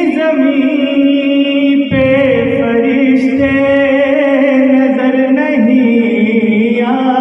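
A man's solo voice chanting a Shia devotional lament for Imam Hussain. He holds long notes that waver in pitch, with a short breath about two seconds in.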